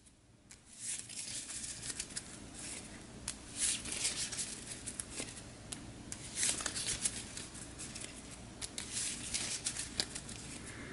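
A small deck of tarot cards being shuffled by hand, a quick run of light card rustles and clicks starting about a second in.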